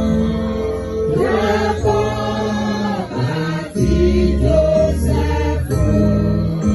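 A choir singing with instrumental accompaniment and a steady bass line.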